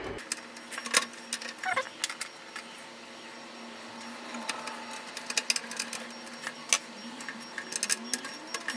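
Irregular small metal clicks and taps of screws and a screwdriver as a micro ATX motherboard is screwed down onto the standoffs of a PC case, over a faint steady hum.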